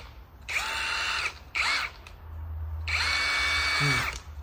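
Cordless impact driver run free by its trigger three times: two runs of about a second and one short blip between them. Each starts with a whine that rises and then holds steady before cutting off.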